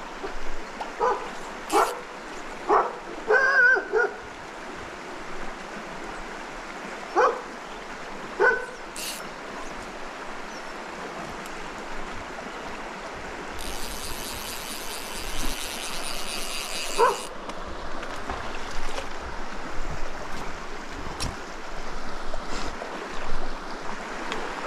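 A dog barking: a quick run of barks in the first few seconds, then a few single barks spread farther apart. A shallow mountain stream runs steadily under it.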